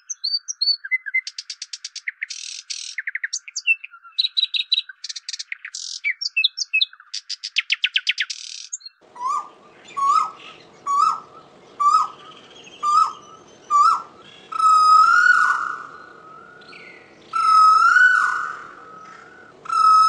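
Common nightingale singing: fast, varied phrases of trills, clicking runs and whistles. About nine seconds in it gives way to an Asian koel calling, a clear rising whistled note repeated about once a second, the later calls longer and louder, over a faint hiss.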